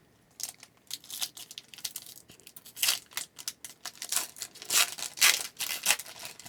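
A trading card pack's wrapper being torn open and crinkled by hand: a run of irregular sharp rips and crackles, getting louder in the second half.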